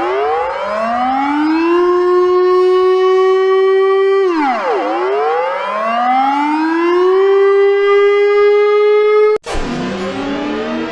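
Civil defense siren wailing: it winds up over about two seconds to a steady pitch, drops sharply about four seconds in and winds up again. It cuts off abruptly about a second and a half before the end, and a different sound takes over, several tones sliding down together and then holding.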